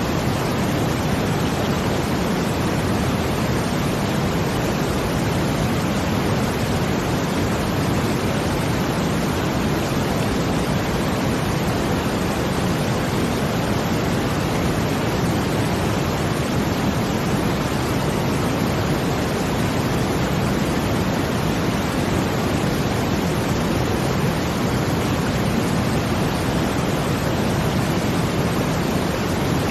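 Brown noise blended with a water sound: a steady, even hiss weighted toward the low end, with no swells or breaks.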